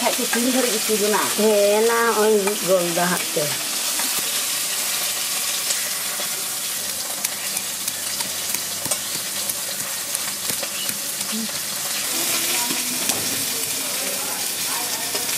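Hot oil sizzling steadily as fish fries in an iron kadai, with light clicks of a metal spatula turning the pieces. A voice is heard briefly in the first few seconds.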